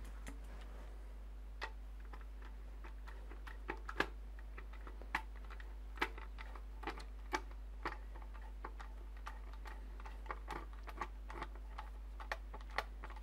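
Scattered light clicks and taps, one or two a second at uneven spacing, from a CPU cooler and its screws being worked loose and handled, over a steady low hum.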